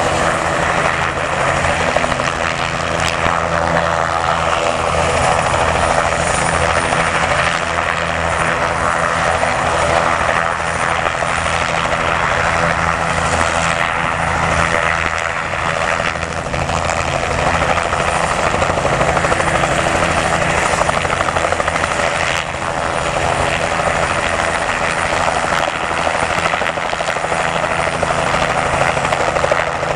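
A formation of light helicopters, a Bell 505 and Robinson R22 and R44s, flying low together: a steady, loud mix of rotor beat and engine noise from several machines at once, dipping briefly about two-thirds of the way through.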